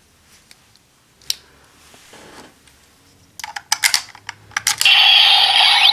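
Several sharp plastic clicks as a Ryusoul is loaded into and worked in a Ryusoul Changer toy. About five seconds in, the toy's loud electronic sound effect starts, with gliding tones.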